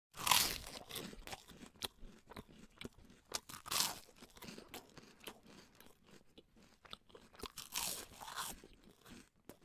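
A marmot chewing on a plant stem: a run of irregular crunches and clicks, loudest just after the start, near four seconds and around eight seconds.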